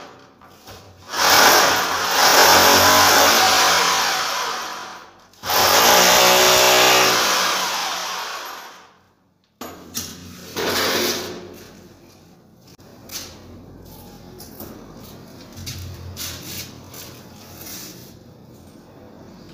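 Corded electric drill boring into the ceiling for the fixing screws of a light-bulb holder. It makes two long runs of a few seconds each that ease off at the end, then a brief third burst, then quieter clicks and knocks.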